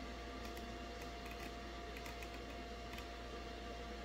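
Scattered light clicks from a scan tool's controls being worked as the code-scan results are scrolled, over a steady faint hum and hiss.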